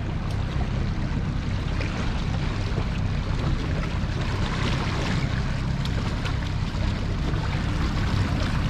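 Boat's outboard engine running steadily at trolling speed, with water washing past the hull and wake.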